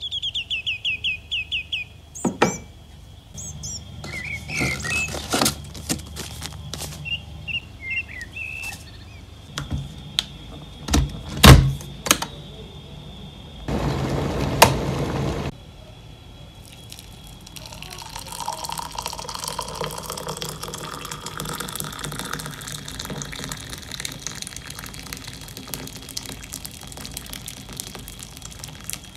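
Household morning sounds in sequence: a rapid electronic beeping alarm for about two seconds, scattered clicks and knocks, a short rush of water about halfway through, then an electric kettle heating up with a building hiss and rumble. Water is poured into a mug near the end.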